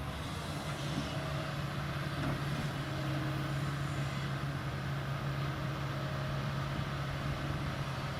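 Kobelco 220 excavator's diesel engine running steadily at working speed, a constant low drone.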